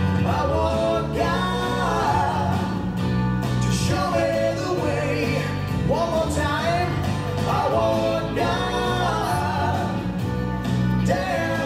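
A recorded song playing: a sung melody over instrumental accompaniment with a steady bass line, the track that the puppets lip-sync to.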